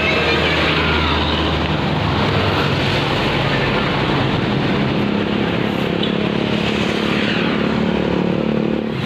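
Street traffic passing close by, dominated by a large engine's steady hum, a tour bus going by, with the hum rising slightly in pitch in the second half.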